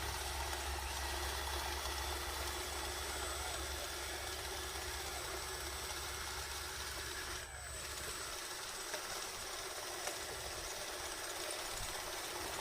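Radio-controlled model bulldozer running with a steady engine-like drone. A low hum drops away about eight seconds in.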